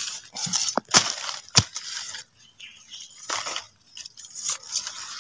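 Dry leaf litter and undergrowth rustling and crunching as a digging tool is pushed through them, with three sharp clicks in the first two seconds.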